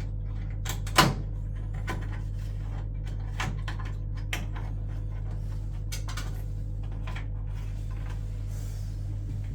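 Scattered clicks and knocks of a boiler's control board and casing being handled, with one louder knock about a second in, over a steady low hum.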